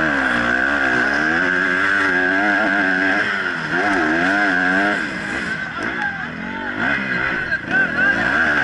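Motocross bike engine at race pace, heard from an onboard camera: it revs up and drops off again and again through gear changes, and goes quieter and choppier for a couple of seconds about two-thirds through.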